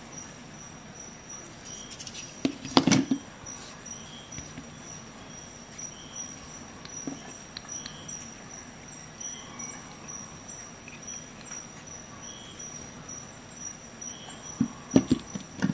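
Pliers being handled against a wooden block and desk, giving a few sharp metal clicks and knocks about three seconds in and a cluster near the end. Under them runs a steady high-pitched tone with faint chirps repeating about once a second.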